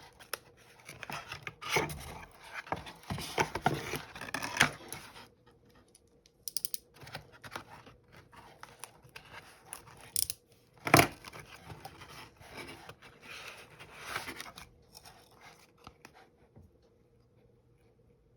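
Packaging being handled and opened: rustling, tearing and scraping of paper or plastic, with scattered sharp clicks and one loud snap about eleven seconds in. It tails off to near quiet for the last couple of seconds.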